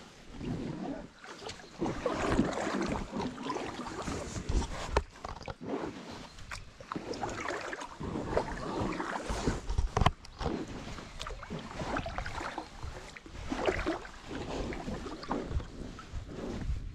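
Paddle strokes from an inflatable packraft: water splashing and dripping off a double-bladed paddle in repeated surges, with scattered sharp knocks.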